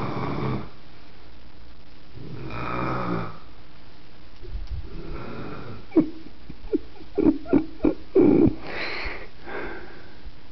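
Elderly woman snoring in her sleep: slow, rasping breaths every couple of seconds, then a run of about six short, sharp snorts in quick succession past the middle, the loudest sounds, ending in a wheezy breath out.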